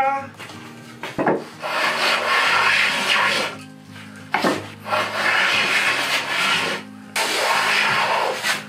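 Hand plane taking a series of long strokes along the edge of a white oak board, each stroke a rasping hiss as a shaving is cut, with short pauses between strokes.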